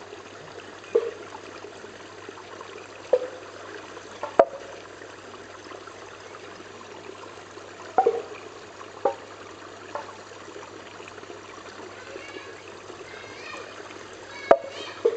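Small garden stream trickling steadily under a pivoting bamboo water spout, with several hollow knocks and plops. The sharpest knocks come about four seconds in and again near the end, around when the spout tips and swings back.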